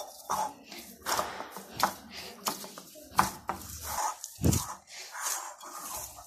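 Dough being kneaded by hand in a glass bowl: irregular soft thuds and knocks as the dough is pressed and turned against the glass, with a heavier thump about four and a half seconds in.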